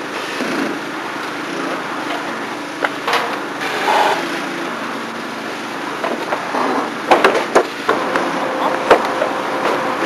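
Scattered knocks and bangs from carpentry work on a house's wooden upper-storey framing, over a steady outdoor hiss. A quick cluster of knocks comes about seven seconds in, and another single knock near the end.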